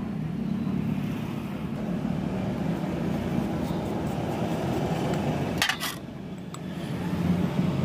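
A steady low hum in the background, with a short metallic clink of a socket wrench on the steel oil drain bolt of a TVS XL100 engine about two-thirds through as the bolt is worked loose.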